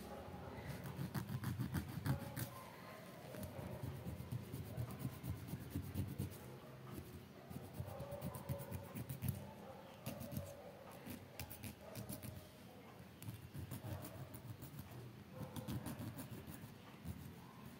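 A nail file scraping along the edge of a toenail in quick repeated strokes, shaping the nail.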